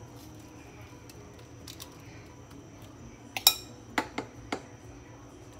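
A metal fork clinks against a ceramic bowl of breadcrumbs. There are a few faint ticks early on, then four sharp clinks from about three and a half to four and a half seconds in, and the first clink is the loudest.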